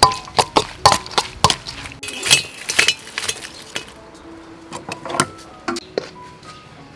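A spoon clinking and knocking against a metal bowl as shredded green mango with chilli is tossed, about three knocks a second at first, then fewer, sparser clinks in the second half.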